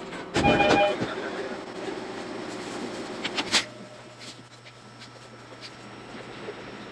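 Interior sound of a stopped JR East E231-series commuter train car at a station platform. There is a short loud burst with a few ringing tones about half a second in, a sharp knock about three and a half seconds in, then a steady low hum from the standing train.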